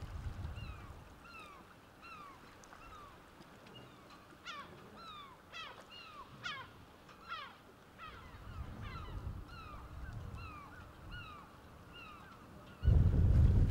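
Gulls calling: a steady series of short, downward-slurred cries, about two a second, with a few sharper, steeper cries in the middle. Near the end, gusty wind on the microphone cuts in suddenly and loudly.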